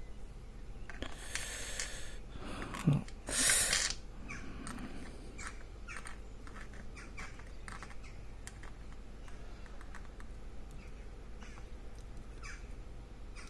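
Small metal parts of a disassembled Axa Clinch disc-detainer padlock clicking and tapping as the sticky, greased discs and spacers are handled, in scattered light clicks. About three seconds in there is one louder knock, followed by a brief noisy rush.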